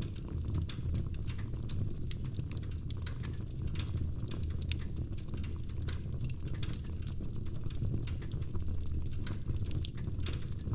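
Wood fire in a fireplace crackling: a steady low rumble of burning with many small, irregular pops and snaps scattered throughout.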